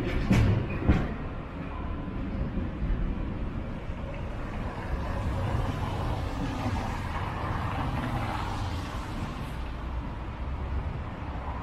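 Street traffic: cars driving past on a wet, slushy road, engine rumble with tyre hiss that swells and fades in the middle. Two sharp knocks near the start.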